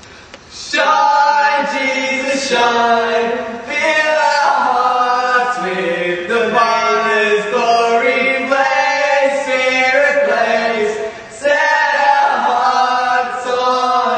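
Voices singing a slow, chant-like melody, starting about a second in, with a brief pause near the end.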